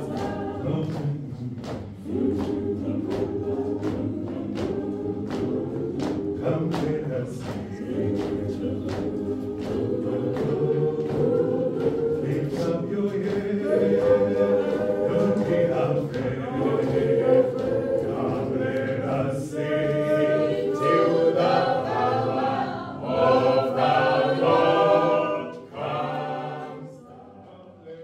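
Church choir singing a processional march over a steady beat of sharp knocks, about two a second. The singing dies away shortly before the end.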